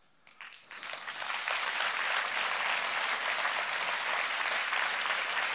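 A large audience applauding. A few scattered claps start it, and within about a second and a half it fills out into steady, dense applause.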